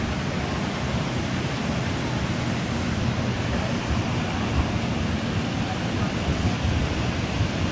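Water pouring over a dam spillway: a steady, even rush of noise with a heavy low rumble.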